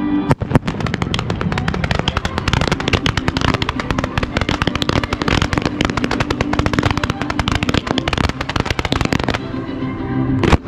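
Opening barrage of display fireworks: a fast, unbroken volley of sharp cracks and bangs, many per second, that starts just after the beginning and stops about a second before the end, followed by one loud single bang near the end.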